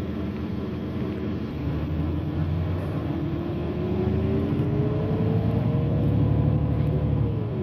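Irisbus Citelis city bus heard from inside the cabin while accelerating: a low engine rumble grows louder as a drivetrain whine rises slowly in pitch, then the whine drops sharply near the end.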